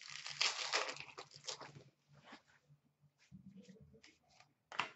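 A trading card pack's wrapper torn open with a crinkling rustle for about two seconds, followed by light clicks and shuffling as the cards are handled, and a sharp tap near the end.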